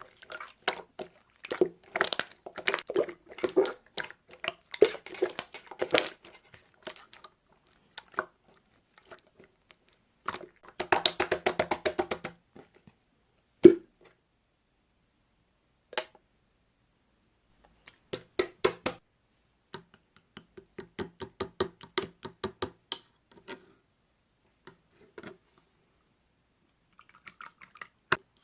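Slime being pressed, poked and stretched by hand, giving runs of small wet clicks and pops with pauses between, and one sharper snap about halfway through.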